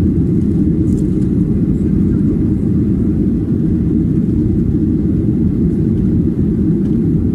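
Airliner cabin noise in flight: the steady, deep rumble of the jet engines and airflow heard from inside the cabin at a window seat.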